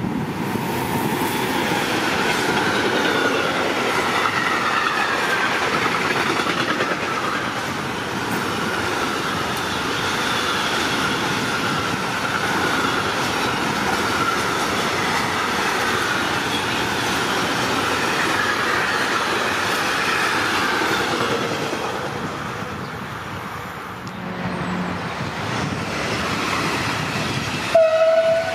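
Electric freight train of tank containers on flat wagons rolling past at speed: a steady rumble and rail clatter with a wavering high squeal from the wheels. The noise dips about four seconds before the end as the wagons pass, and a short, loud horn toot sounds near the end.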